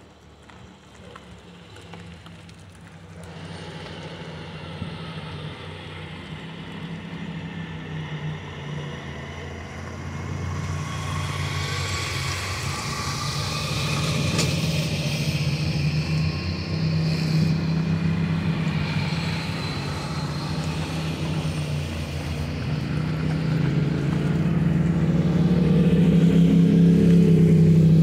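A slow line of vehicles driving past, semi-truck tractors and pickup trucks among them, engines running low and steady. The sound builds gradually and is loudest near the end as a pickup comes close.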